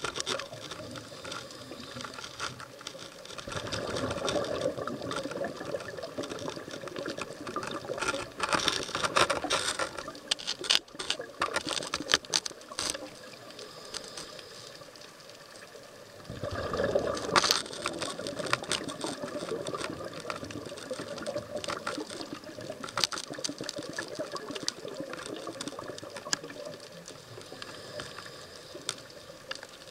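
Underwater sound through a diving camera's housing: a scuba diver's exhaled bubbles gush out of the regulator in bursts every few seconds, over a steady crackle of small clicks.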